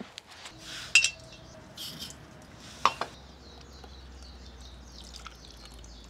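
Water pouring from a soft plastic water bottle into a collapsible silicone pot, with a couple of sharp clinks of camp cookware.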